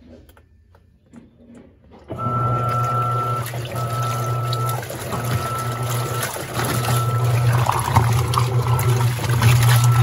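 Electrolux Premium Care LPR17 top-load washer's impeller starting to agitate about two seconds in. Its motor hums with a higher whine in runs of a second or so, with brief breaks as it changes direction, while the water and clothes churn.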